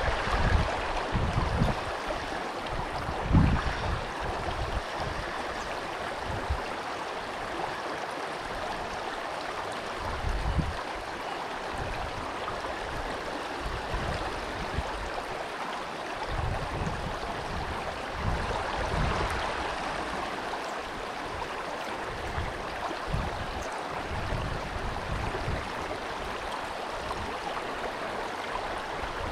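Creek water rushing steadily around the wader, with low rumbles of wind on the microphone that come and go.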